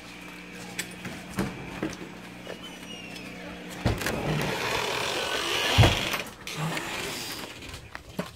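Handling noise from a phone carried in hand, with scattered knocks and thumps; a steady low hum stops about four seconds in, giving way to a louder rush of noise, with one loud thump near six seconds.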